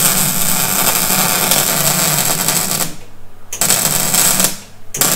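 Electric welding arc crackling in bursts: one long run of about three seconds, then two short ones near the end. A weld is being built up on a broken-off steel stud seized in an aluminium engine head to draw it out.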